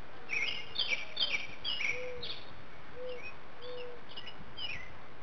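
Backyard birds chirping: a quick run of short, down-slurred chirps, then softer scattered chirps, with three short, low, soft notes in between.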